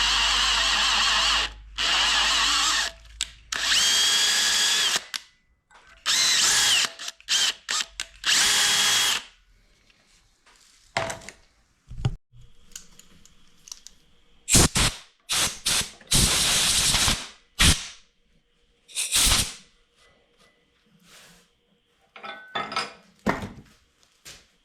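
Power drill running steadily, then started and stopped in several short bursts, its motor pitch rising and falling as it speeds up and slows, drilling and tapping a screw hole in a cast metal part. In the second half come short knocks and rasps of handling.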